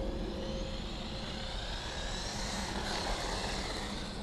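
Brushless motor and drivetrain of a Traxxas 1/16 E-Revo RC truck, running on a 3S battery, whining as the truck drives. The high whine rises and falls in pitch with the throttle, over a steady low rumble.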